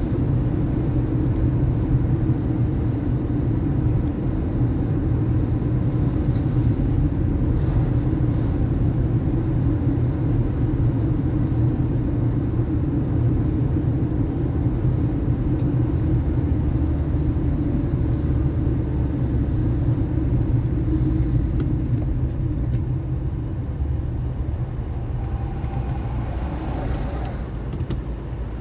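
A car driving on city streets: a steady rumble of engine and tyres on the road, easing slightly over the last few seconds.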